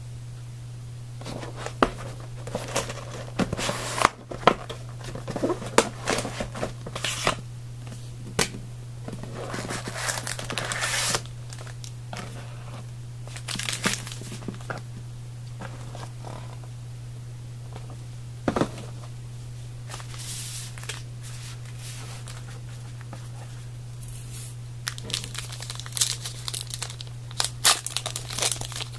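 Plastic wrapping of a trading-card box and its packs being torn open and crinkled in irregular bursts, over a steady low hum.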